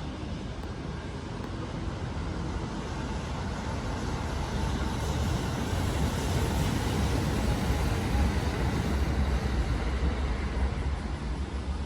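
Kintetsu electric train running past, a steady rumble of wheels on track that builds to its loudest past the middle and eases a little near the end.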